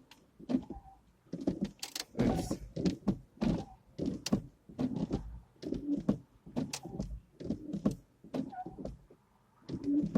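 Chevy S10 windshield wiper motor running the wipers in repeated sweeps, with thunks as the blades change direction. The wipers keep running after being switched off.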